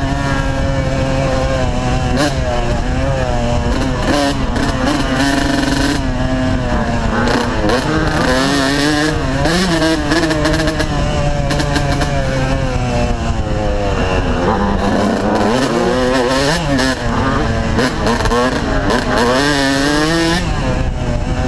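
Yamaha YZ125 two-stroke dirt bike engine under way on a woods trail, its pitch rising and falling repeatedly as the throttle is worked, dropping lower about two-thirds through before climbing again. Wind rush on the helmet-mounted microphone runs underneath.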